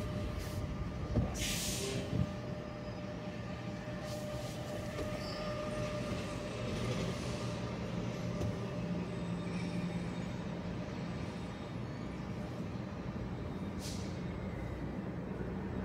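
City traffic heard from a moving car: a steady low rumble of engine and road noise with a faint whine, and a short hiss about a second and a half in.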